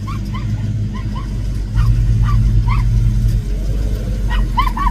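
A car engine idling with a steady low rumble that gets louder about two seconds in, while a small dog yips again and again in short, high barks, with a quick run of yips near the end.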